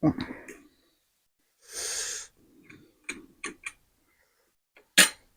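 Mouth sounds of eating spicy noodles: a hissing half-second breath or slurp about two seconds in, a few short wet smacks and clicks, and a sharp click near the end.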